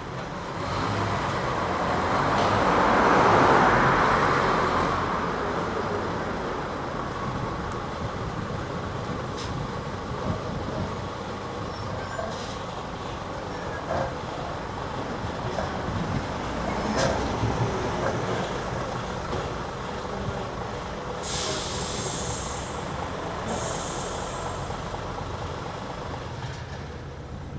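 A road vehicle passing: a broad rushing noise that swells over the first few seconds and slowly fades, with scattered light knocks. Two short hisses of air about two seconds apart come near the end.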